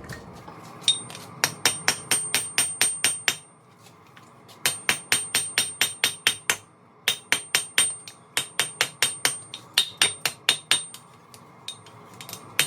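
Hand hammer forging hot steel on an anvil: runs of quick, ringing blows, about five a second, broken by short pauses between runs.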